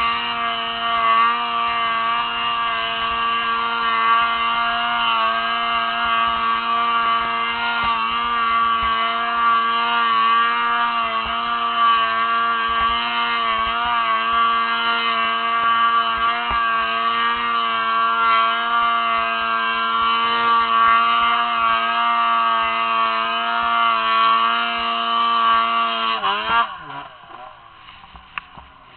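Arctic Cat M1000 snowmobile's two-stroke engine held at high, steady revs under load while climbing. Near the end, the revs fall sharply and the engine drops back to a much quieter level as the throttle comes off.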